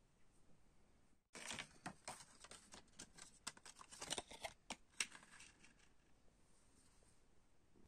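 Folded paper cassette inlay card being refolded in the hands: crisp paper rustling and crackling, starting about a second in and lasting about four seconds, with the sharpest snaps near the end before it goes quiet.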